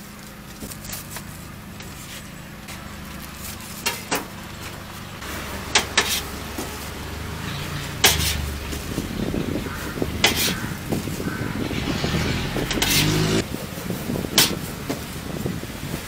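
Irregular sharp taps of a knife and bread being handled on a stainless-steel counter, over the low rumble of a road vehicle's engine that swells about a third of the way in and eases near the end.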